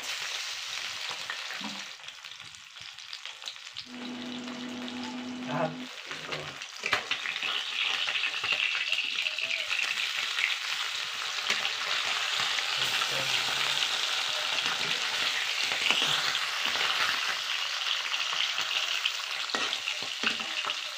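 Small sea fish sizzling as they fry in hot mustard oil in an iron kadai, with clicks and scrapes of a metal spatula turning them. The sizzle grows louder about seven seconds in.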